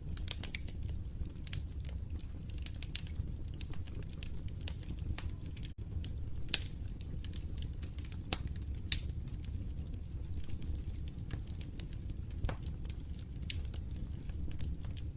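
Wood fire crackling in a fireplace: a steady low rumble of burning logs under frequent sharp pops and snaps, the loudest about six and a half and nine seconds in.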